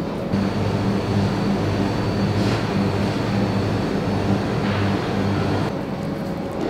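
A steady low mechanical hum, louder between about half a second and five and a half seconds in.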